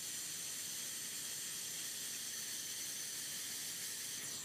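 Laser welding head welding a coiled wire spring onto steel sheet: a steady high hiss while the beam fires.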